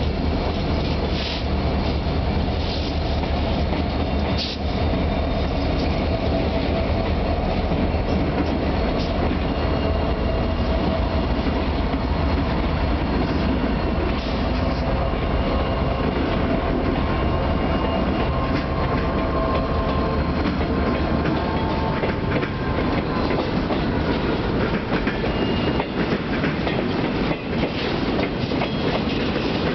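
CN diesel freight train rolling past as it departs: the locomotives' deep engine rumble is strong at first and fades over the first half. Boxcars and empty flat cars follow, their wheels clicking and rattling over the rails.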